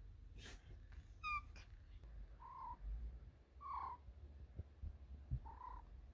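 Domestic cat making short chirping trills, asking for treats: one clear call about a second in, then three softer ones spaced a second or two apart.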